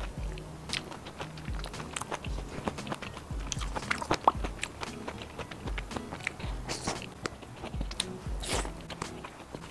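Close-miked eating of fried skewers: chewing with wet mouth clicks and a dull thump about once a second, then a crunchy bite into a bacon-wrapped skewer near the end.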